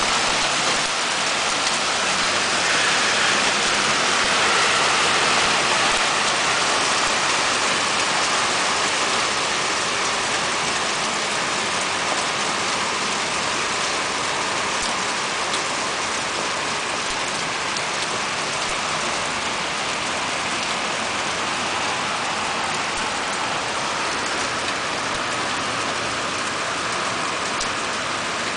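Hailstorm: hail and heavy rain pelting a balcony and the ground around it, a dense, steady hiss of countless small impacts. It is slightly louder in the first few seconds.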